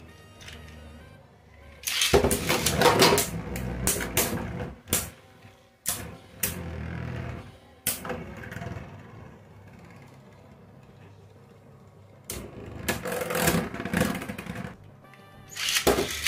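Beyblade spinning tops spinning in a plastic stadium and clashing against each other and the walls, in two spells of rapid clicking and rattling with quieter spinning between them, and a loud rattle near the end.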